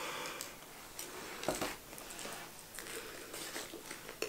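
Faint eating sounds: a burger being chewed and handled, with soft rustling of its paper wrapper and a few small clicks, the sharpest near the end.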